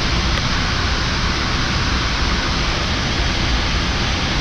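Steady hiss with a low rumble underneath: the flight deck background noise of a parked Boeing 787-9 with its engines not yet started, typical of air conditioning airflow and equipment cooling fans.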